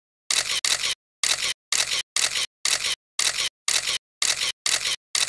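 Intro sound effect: a quick run of short, sharp noisy bursts, about two a second with silence between, one for each letter of the title as it appears.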